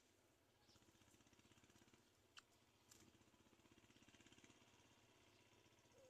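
Near silence: faint steady background noise, with a couple of faint short clicks around the middle.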